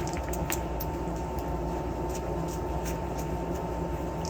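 Steady low background hum with a thin, faint whine held on one pitch, and a few light clicks of small parts being handled.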